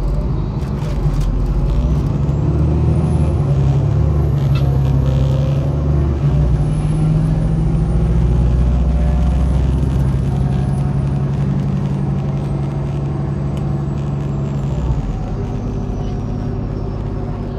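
MAZ-103 city bus under way, heard from inside the cabin: its diesel engine pulls hard and steady, getting louder just after the start and easing off about 15 seconds in. A thin high whine climbs over the first few seconds and then slowly falls away.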